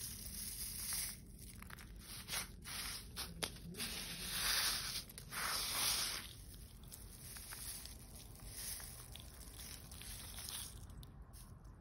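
Dry, papery Easter lily seeds rustling and pattering as a hand scoops them up and pours them into a paper cup, in irregular bursts that are loudest around four to six seconds in.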